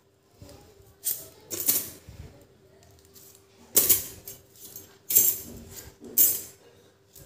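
Thin steel core laminations of a small transformer clinking and jingling as they are pulled out of the bobbin and dropped onto a pile of plates, in several separate short rattles.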